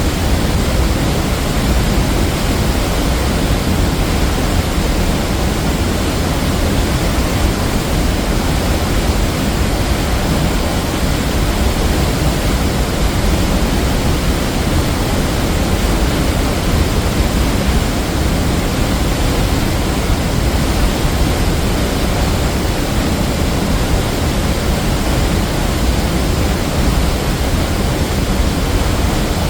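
Waterfall crashing into its pool, a loud steady rush of water, with no break or change.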